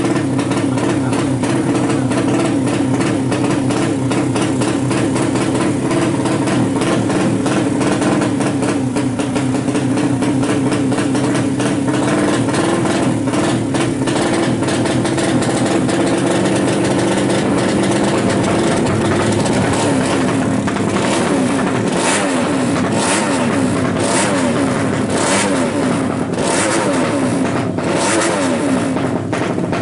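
A newly built 200cc racing motorcycle engine being tuned. It runs at a steady fast idle, then from about two-thirds of the way through it is revved up and down again and again in quick blips.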